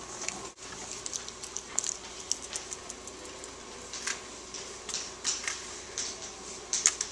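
Paper props and craft-stick puppets being handled, with scattered short rustles and soft clicks over a faint steady room hum.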